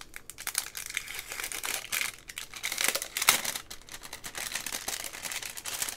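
Pin packaging crinkling and rustling as it is handled, a dense, irregular run of small crackles and clicks, with one sharper crack about three seconds in.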